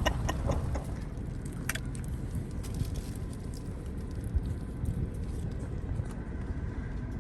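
Low steady rumble of a car idling or creeping along, heard from inside the cabin, with scattered small clicks and knocks.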